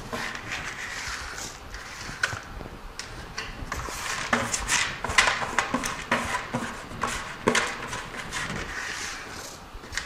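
Sunflower seeds pouring from a plastic bucket onto soil-filled growing trays: an uneven rattling hiss with many scattered clicks and knocks.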